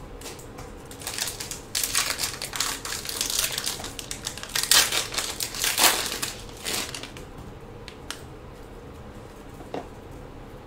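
Crinkling and rustling of trading-card packaging and cards being handled and opened, with sharp crackles that are loudest around the middle and fade to a few faint clicks near the end.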